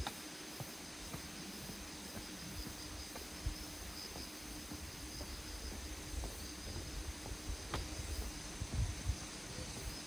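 Faint, steady, high-pitched insect chirring from the surrounding woods, over irregular low thuds of footsteps on a trail, a few of them louder near the end.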